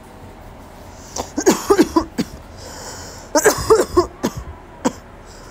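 A woman coughing in two short bouts of about three coughs each, with a sharp breath in before each bout.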